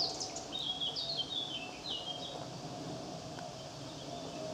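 A small songbird singing: a run of quick high chirping notes that step downward in pitch during the first half, over a steady faint outdoor hum.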